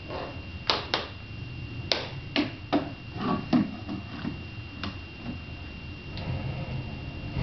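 A plastic remote control knocking and clattering as it is handled on a hardwood floor and pushed against a wooden toy bin: about six sharp knocks in the first four seconds, then a few fainter ones.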